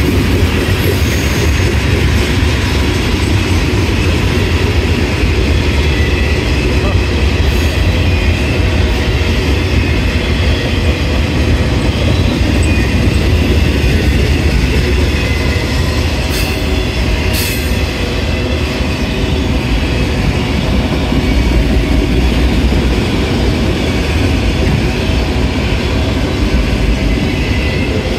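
Freight train cars rolling steadily past: tank cars, then autorack cars, with a continuous low rumble of steel wheels on the rails and faint high wheel squeal.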